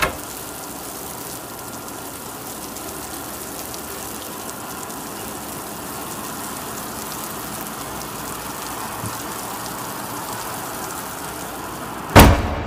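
A steady rain-like hiss with faint crackling, opening on a sharp hit, with a loud boom about twelve seconds in.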